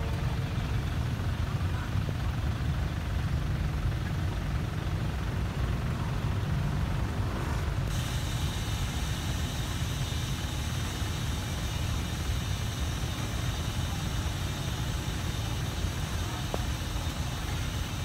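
Steady low rumble of a stationary diesel-hauled passenger train's engines running as it stands at the platform. A steady hiss suddenly joins about eight seconds in.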